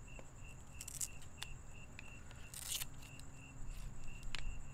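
A cricket chirping steadily, about three chirps a second. A few sharp clicks and one short scrape come from the folding whip antenna being handled and unfolded.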